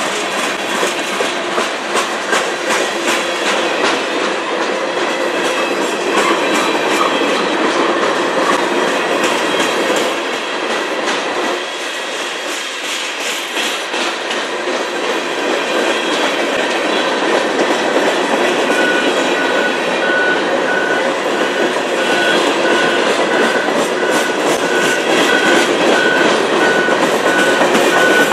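Freight cars, covered hoppers and then empty centerbeam flatcars, rolling past, their steel wheels rumbling and clicking over the rail joints in a steady clickety-clack. A high, pulsing squeal joins in during the second half.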